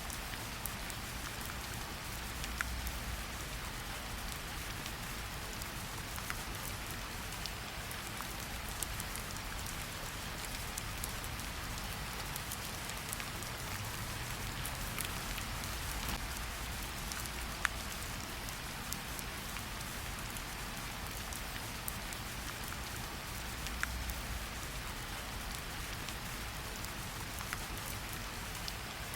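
Steady rain falling, with scattered sharp crackles from a wood fire in a fireplace.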